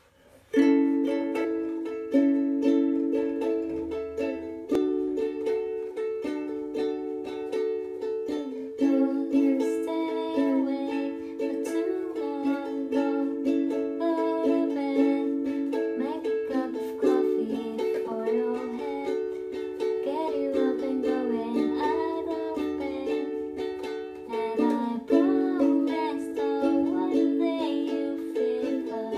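Ukulele strummed in steady chords, starting about half a second in, with a woman singing along from about nine seconds in.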